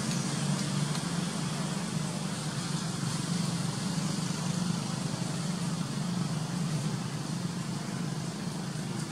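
Steady outdoor background noise: a low rumble with a hiss above it and no distinct events.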